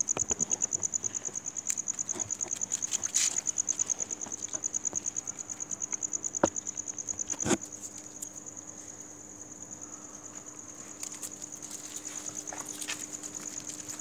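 A cricket chirping steadily in fast, even, high-pitched pulses, with two sharp knocks a little past halfway.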